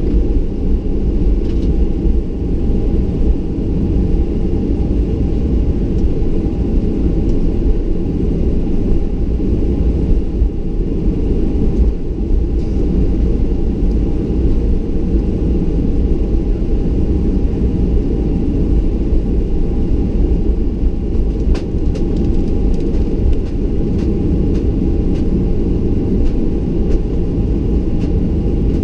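Boeing 737-800 heard from inside the cabin while taxiing: a steady low rumble of the airframe and landing gear rolling, with the CFM56 engines at idle giving a faint steady hum. A few faint clicks come near the end.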